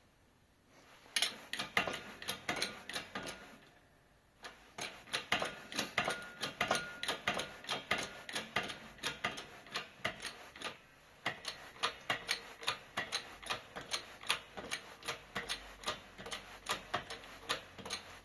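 Rapid, irregular clicking, several clicks a second, with a short pause about four seconds in, from a shop press being worked to press a bearing onto a Subaru Impreza gearbox shaft.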